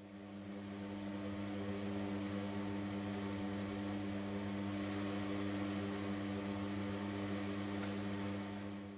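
Steady electrical hum and whir of the stirring heating mantle running under the reaction flask, with an even hiss over it. It fades in over the first second and fades out near the end.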